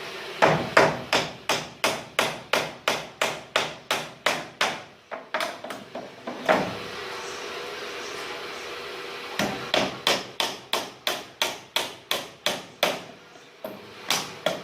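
A carpenter's hammer striking repeatedly in quick, even blows, about three a second. It comes in two runs with a pause of a few seconds between them.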